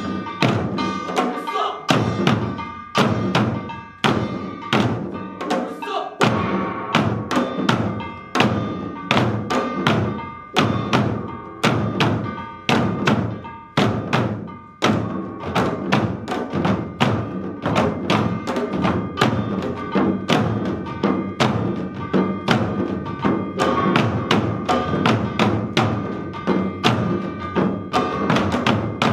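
Korean sitting samulnori drumming: a row of janggu hourglass drums struck in fast, dense interlocking rhythm, with a steady ringing metal tone over it. The playing briefly drops off twice before picking up again.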